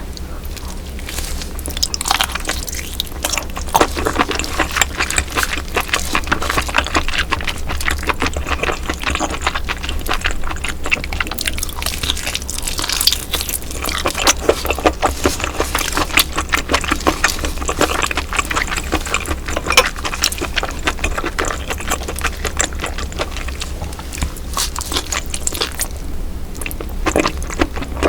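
Close-miked wet eating of roe-filled baby octopus in soup: a dense run of chewing, slurping and small wet smacks and clicks, over a steady low hum.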